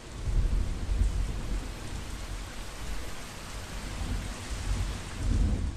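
Steady heavy rain with rolling thunder, the low rumbles swelling about half a second in, again around a second in, and once more near the end.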